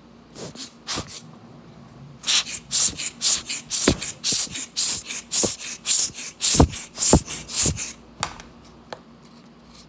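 Quick scrubbing strokes of something rubbed back and forth over a Bose QuietComfort headphone's bare plastic earcup, about two or three strokes a second for some six seconds, with a few dull handling thumps among them.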